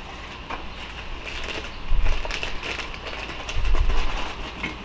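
Workbench handling sounds of transmission parts: scattered clicks and light clatter with rustling, broken by two dull low thuds about two seconds in and again near four seconds in.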